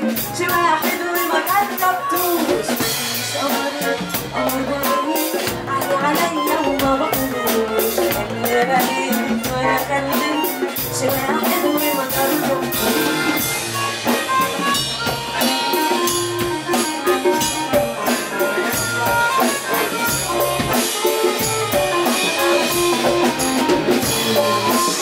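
Live band music with a steady drum-kit beat, accordion, harmonica and keyboard playing together.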